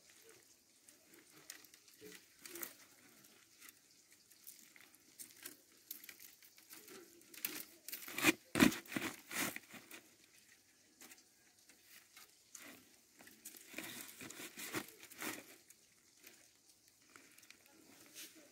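Split cane strips rustling, clicking and scraping as they are woven over and under the spokes of a coiled basket base, rubbing on a plastic sack beneath. A louder cluster of scrapes and clicks comes about eight seconds in.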